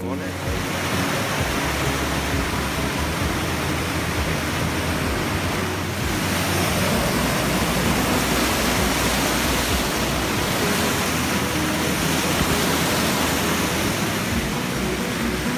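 Steady rushing of a stream or small waterfall, an even hiss with a low rumble underneath.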